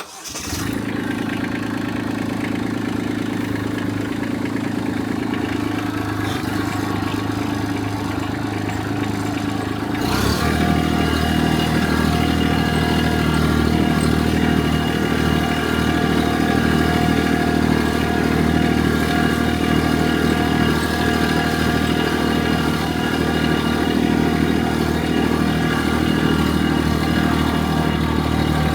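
An engine running steadily; about ten seconds in it steps up to a louder, higher-running note and holds there.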